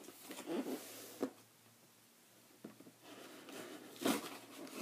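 Cardboard shipping box being cut and opened by hand: scraping and rustling of cardboard and packing tape, a sharp click about a second in, a short lull, then louder rustling near the end.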